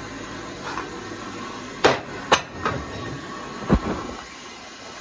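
Four sharp knocks over about two seconds, starting about two seconds in, the last one the deepest. They sound like hard objects being handled and set down, over a steady background hiss.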